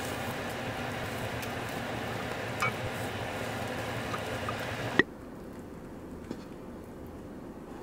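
Egg sizzling in a non-stick frying pan as an omelette-wrapped kimbap roll is turned with a wooden spatula, with a light tap about two and a half seconds in. About five seconds in the sizzling cuts off abruptly after a sharp click, leaving a much quieter background.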